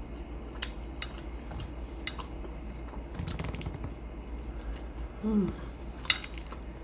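Utensils clinking against dishes during a meal: a few separate light clicks, the sharpest about half a second in and near the end, with a short vocal murmur a little after five seconds in.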